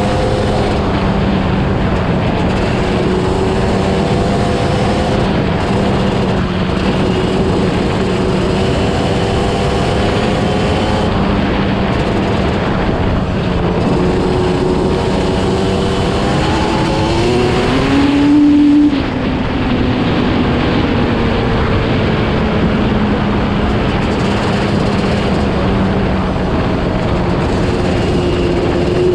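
1990 Yamaha Banshee's two-stroke twin-cylinder engine running as the ATV is ridden along a dirt track. The revs climb about sixteen seconds in to the loudest point just before nineteen seconds, then fall away and settle.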